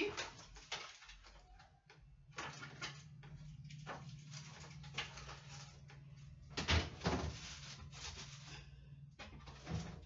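Knocks and clatter of things being moved about in an open refrigerator, the loudest a few knocks about two-thirds of the way in. A steady low hum runs underneath from a couple of seconds in.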